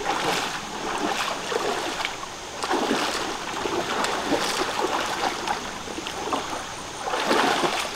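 Shallow stream running over rocks, with repeated splashing as two people wade through the water; the splashes come in swells every second or so, loudest near the end.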